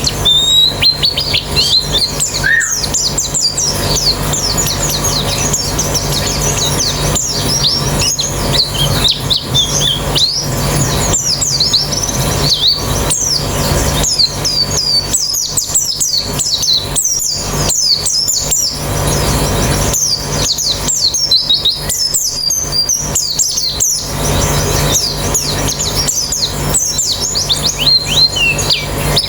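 Many white-eyes (pleci) singing at once: a dense, unbroken chatter of fast high chirps and twittering trills, over a faint steady low hum.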